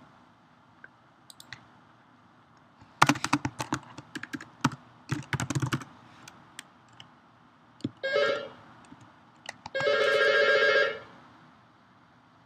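Computer keyboard typing in a quick run of clicks, followed by a trilling telephone ringtone: a short ring, then a longer ring about a second and a half later.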